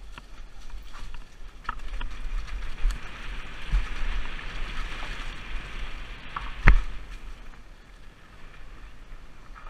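Mountain bike rattling down a rough dirt trail: the rush of wind and tyres on rocks and leaves, with sharp knocks from the bike over bumps, the hardest about seven seconds in.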